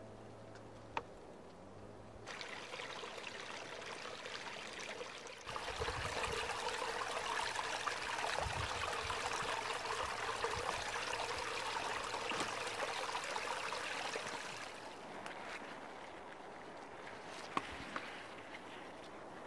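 Water flowing in a small stream, a steady rushing that comes in suddenly about two seconds in, gets louder a few seconds later and eases off near the end, with a few short clicks.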